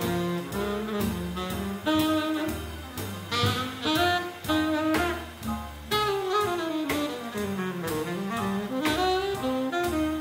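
Small jazz group playing swing: a saxophone carries the lead in quick melodic runs over walking upright bass, piano and a drum kit keeping steady time on the cymbals.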